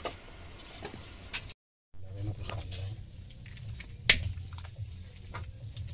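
Kitchen cooking noises: scattered light clicks and taps of a utensil against a pan or dish while the noodles are cooked, with one sharp clack about four seconds in. The sound cuts out completely for a moment near the start, and a low steady hum runs under the later part.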